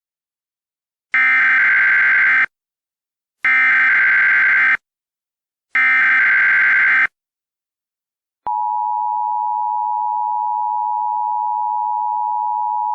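Emergency Alert System alert tones: three short, loud, buzzing bursts of SAME digital header data, each a little over a second long with a pause between, then the steady two-tone EAS attention signal starting about eight and a half seconds in.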